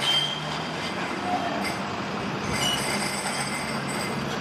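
Metrolink M5000 light-rail tram moving away along street track, its wheels squealing on the rails in thin high tones, briefly at the start and again more strongly over the last couple of seconds.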